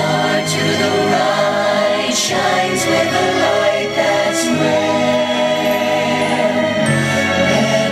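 Music with a choir singing long held chords, with a few brief high hissing bursts mixed in.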